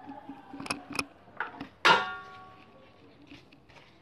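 Kitchenware being handled: a couple of light clicks about a second in, then one sharp clink that rings on briefly, with no blender motor running.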